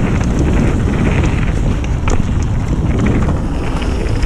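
Wind buffeting the microphone and knobbly tyres rolling over a dirt trail as a mountain bike descends at speed. Scattered clicks and rattles come from the bike over bumps.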